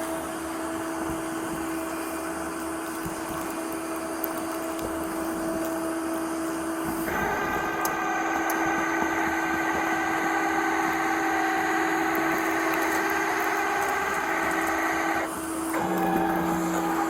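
Tow truck machinery running with a steady hum; a higher whine joins about seven seconds in and stops about eight seconds later.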